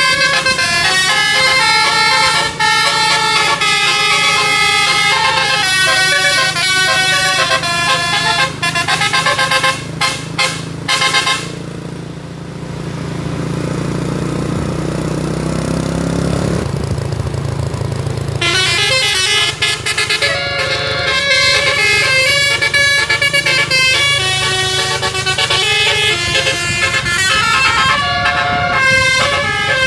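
Bus telolet horn (a Basuri multi-tone horn set) playing fast melodic tunes, its notes changing in quick steps. Partway through, the tunes break off for several seconds while the bus engine revs up, rising in pitch and then dropping back, before the horn tunes start again.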